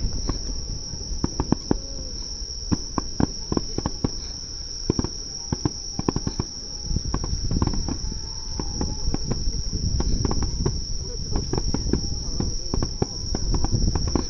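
A steady, high-pitched chorus of crickets, with many irregular crackles and low rumbles mixed in.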